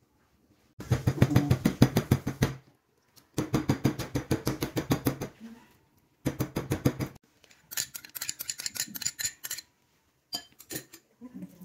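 Raw chicken being pounded on a plastic cutting board to tenderise it: three runs of rapid strikes, about eight a second, the first two lasting about two seconds each and the third shorter. Then a stretch of fainter, hissier scraping, and a few light clicks near the end.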